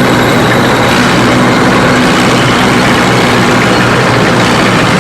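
Heavy tank engine running steadily: a loud, even drone with a constant hum underneath.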